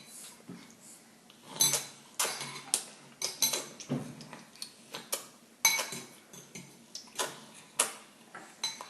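Cutlery clinking and knocking against dishes at a meal: a dozen or so irregular, sharp clinks with short ringing tails.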